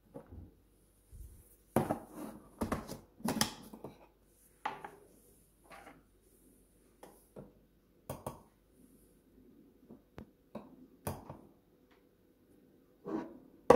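Irregular clinks and knocks of an aluminium moka pot being handled: the pot's parts and a metal coffee tin set down on a stone counter, and a spoon scooping ground coffee into the filter basket.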